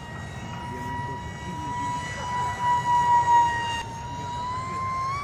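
Small brushless motor and propeller of an RC plane whining at a steady high pitch in flight, swelling louder about halfway through and rising slightly in pitch at the very end.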